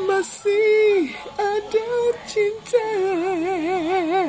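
A single high-pitched voice singing unaccompanied: a few short held and sliding notes, then from about three seconds in one long held note with a wide, fast vibrato of about five wobbles a second.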